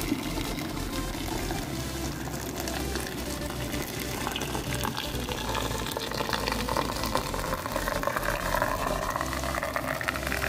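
Boiling water being poured into a glass jar packed with red bell peppers, salt and sugar, to pickle them. The splashing pour rises gradually in pitch over the second half as the jar fills.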